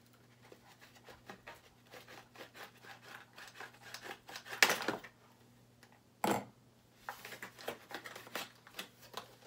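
Knife cutting and prying open product packaging: scratchy scraping and crinkling with small clicks, a louder rasp about four and a half seconds in and a sharp snap a little after six seconds.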